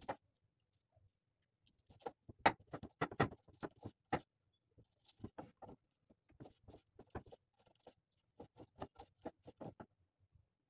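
Kitchen knife chopping a red onion on a wooden cutting board: sharp knocks of the blade cutting through the onion onto the wood, in three runs of quick strokes with short pauses between.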